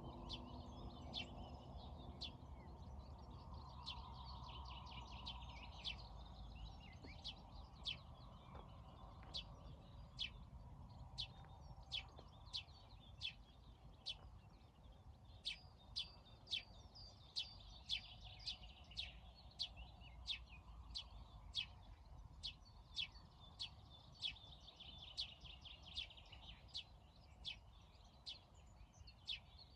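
Birds chirping: a steady run of short, sharp high chirps, about two a second, over fainter twittering and a low background rumble.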